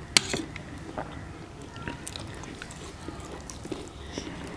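Close-up eating sounds: chewing and mouth noises as two people eat chicken fry and dhido, with one sharp click just after the start and scattered small clicks.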